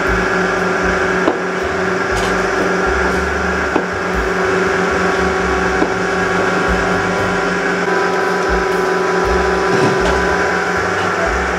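A steady mechanical hum with several held tones, broken by a few sharp clicks and knocks.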